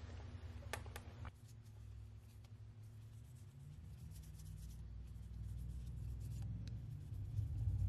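Lint-free nail wipe rubbed over gel nails to wipe off the sticky uncured gel layer after curing, a soft scratchy rubbing. A couple of sharp clicks come about a second in, and a low rumble swells near the end.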